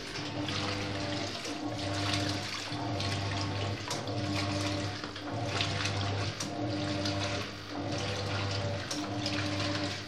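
Hoover Boss 7.5 kg top-loading washing machine agitating a load: water sloshing and churning, with the drive motor's low hum coming and going every second or so as the agitator swings back and forth.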